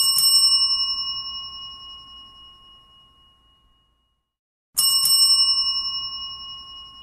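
A bell rung twice, about five seconds apart. Each ring starts with a few rapid strikes and then rings on with clear, steady tones that fade away over about three seconds.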